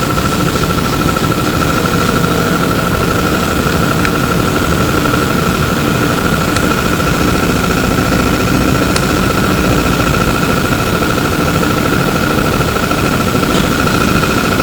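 Cabin noise aboard a Flyer E902 electric trolleybus: a steady low rumble with a constant high-pitched whine over it, and a few light clicks.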